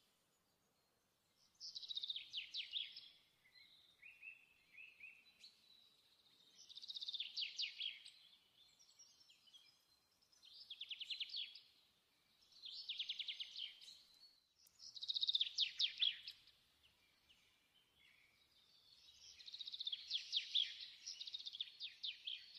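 Bird song: a string of short, rapidly trilled, high phrases, each about a second long, repeated every two to three seconds.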